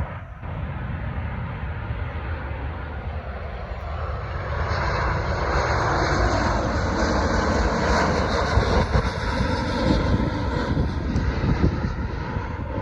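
Jet airliner's engines passing, growing louder from about four seconds in to a peak in the middle, then easing off.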